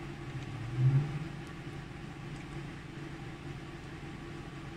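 Galaxy-Jet X 6090 flatbed UV printer running with a steady low hum, swelling briefly louder about a second in.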